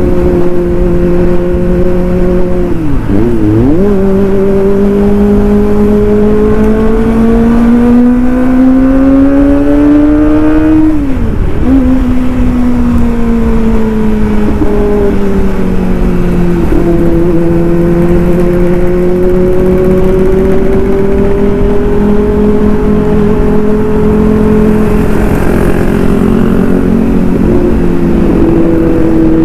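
Kawasaki ZX-25R's inline-four engine through a racing exhaust, riding under way: the note dips briefly about 3 seconds in, climbs steadily as the bike accelerates, falls sharply at an upshift about 11 seconds in, then settles into steadier cruising with small drops in pitch near the middle and near the end.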